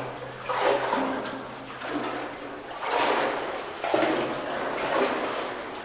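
Someone wading through water on a flooded mine level, the water sloshing and splashing with each stride, about one stride a second.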